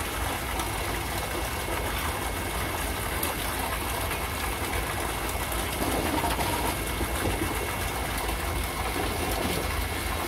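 Steady rush of running water, with a low rumble underneath.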